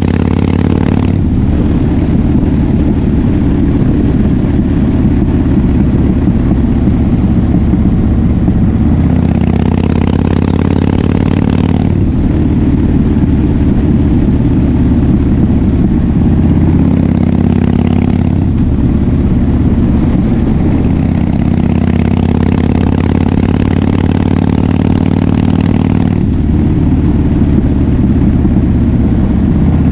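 Harley-Davidson Fat Bob FXDF V-twin running through an aftermarket KessTech exhaust while riding, its note rising and falling several times as the throttle is opened and rolled off.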